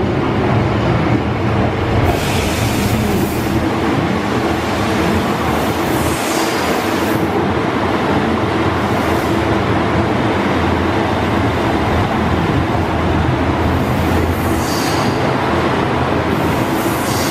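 Kyoto Tango Railway KTR8000 diesel railcar train running in alongside the platform: a steady, loud diesel engine and wheel rumble, with short high wheel squeals several times as it goes by.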